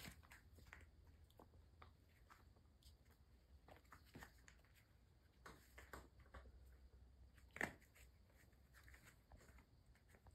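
Near silence with faint, scattered taps and scratches from kittens' paws and claws on rubber floor mats, and one sharper click about seven and a half seconds in.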